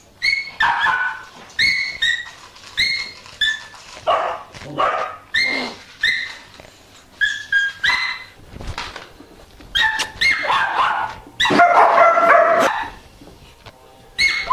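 A dog giving short, high-pitched yelps and whines, about one a second, with a longer, louder cry a little before the end.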